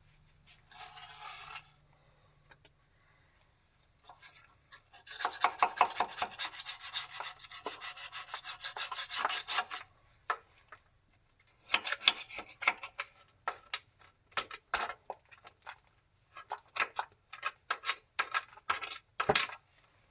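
Hand scrubbing of oily grime on an excavator, fast back-and-forth strokes, about five a second, for several seconds in the middle. Then separate rubbing strokes follow, with pauses between them.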